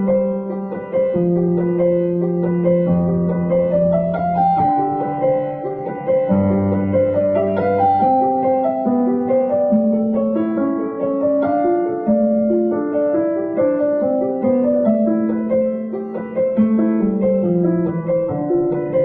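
Piano music: a flowing run of notes over changing bass notes.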